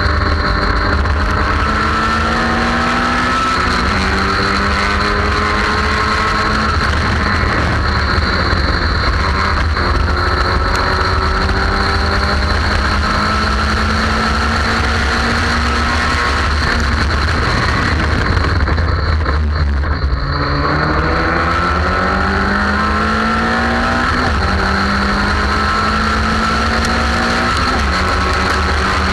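Race car engine at full throttle on track, its pitch climbing through the revs and dropping back at each upshift. About two-thirds through it slows, as for a corner, then pulls up through the gears again. Steady wind rumble on the camera mounted on the car's nose runs underneath.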